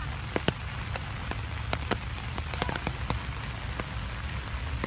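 Steady rain hiss with scattered sharp ticks of individual drops landing close by.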